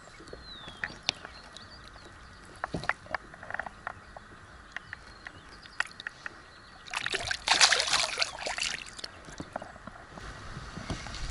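Water splashing and sloshing for about two seconds, some seven seconds in, amid scattered small clicks and knocks of handling in a small boat.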